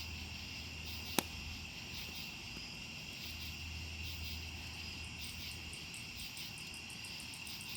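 A steady high-pitched insect trill, with one sharp click about a second in and a run of rapid, faint, evenly spaced clicks in the second half.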